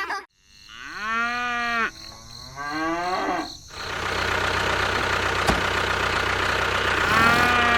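A cow mooing twice, two drawn-out calls one after the other. A small engine then starts idling steadily, and another short moo comes near the end.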